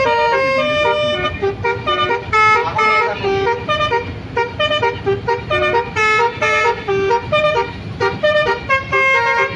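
Bus basuri 'telolet' horn playing a fast tune of short notes that step up and down in pitch, several a second, over a low steady hum.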